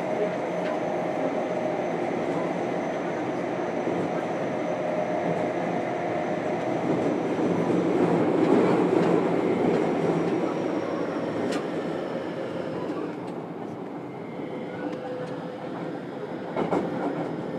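Running noise inside a JR Kyushu 303 series electric train's motor car: a steady rumble of wheels on rail, loudest about eight to ten seconds in and easing after that. Faint steady whining tones from the Hitachi IGBT VVVF inverter drive come in during the second half, and there are a few sharp clacks near the end.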